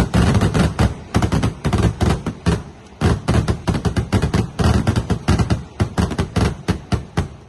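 A rapid barrage of firecracker explosions: sharp bangs following one another several times a second in a long string, with short lulls between volleys.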